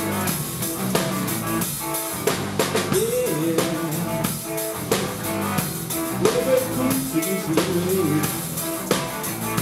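Live rock band playing an instrumental passage: a drum kit with regular hits over electric guitars. A lead line slides up and down in pitch twice.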